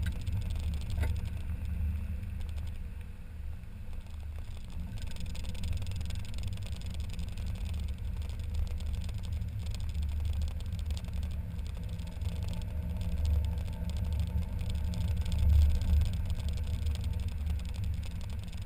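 Mazda MX-5 Miata driving with the top down, heard from the open cockpit: a steady low rumble of engine and road noise.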